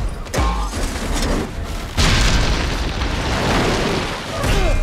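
Action-film sound mix of a runaway train: deep booms and a loud rushing rumble, with score music underneath. The loudest, densest stretch starts about two seconds in.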